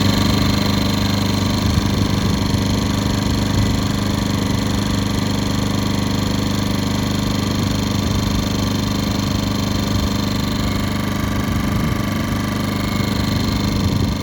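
Yamaha EF1600iS inverter generator engine running steadily at a constant speed, after its clogged carburettor has been cleaned.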